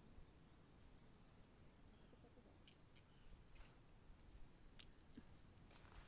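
Steady high-pitched insect chirring, with a faint low rumble underneath and one soft sharp click about five seconds in.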